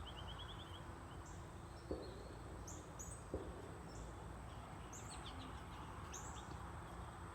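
Small birds chirping: a quick trill of about seven short notes near the start, then scattered brief high chirps and down-slurred calls. Two soft knocks, about two seconds and three and a half seconds in.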